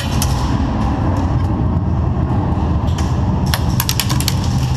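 Airsoft gunfire: a single sharp crack near the start, then a quick string of about eight sharp cracks about three and a half seconds in, over a steady low rumble.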